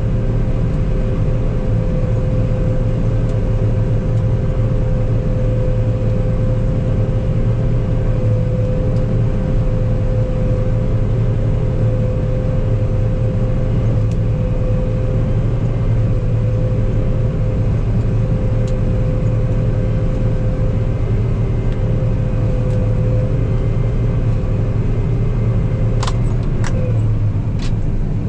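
Combine harvester running steadily while cutting wheat: a constant low drone with a steady whine on top. Near the end there are a few sharp clicks and the whine stops.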